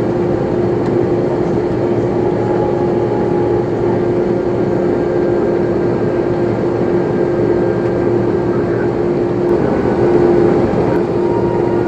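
Steady cabin noise inside an Airbus A330-300 airliner before takeoff: the jet engines and cabin air system make an even rush of sound, with a constant mid-pitched hum.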